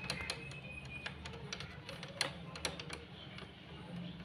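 Irregular light clicks and taps as a parakeet's beak picks at and works a small metal door bolt. A faint, thin, high tone is held briefly in the first second.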